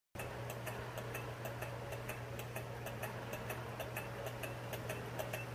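Small Stirling engine running on the heat of a wood stove, ticking evenly about three to four times a second, over a low steady hum.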